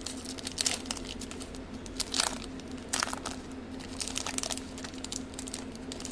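Foil booster pack wrapper crinkling and tearing as it is opened, a run of irregular crackles with a few louder ones.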